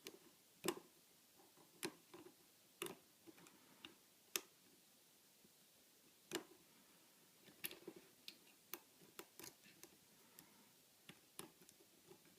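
A lock pick working the pin stack of a 50 mm Ace padlock with spool pins, under a tension wrench: scattered sharp metallic clicks, a few spaced apart and then a quicker run in the second half, as pins set during single-pin picking.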